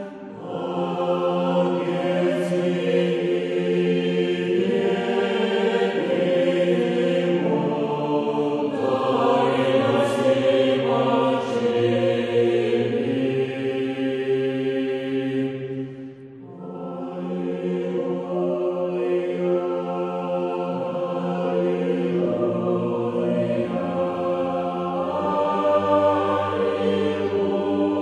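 Choral chant: a choir singing slow, long held chords in low voices, with a short break between phrases a little past halfway.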